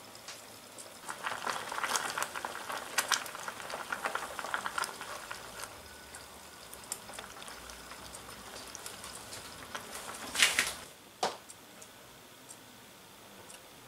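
A small wooden spatula stirring thick simmering soup in a miniature stainless steel pot, with wet crackling and clicking that thins to scattered bubbling ticks. Near the end there is a brief scrape followed by a single knock.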